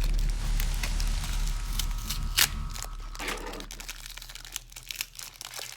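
Plastic packaging crinkling as it is handled, with a few sharp clicks, the loudest about halfway through.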